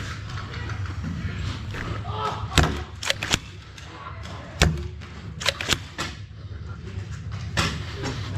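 Foam dart blasters firing and darts striking in a Nerf game: about seven sharp knocks and thuds at irregular intervals, with players' voices faintly behind.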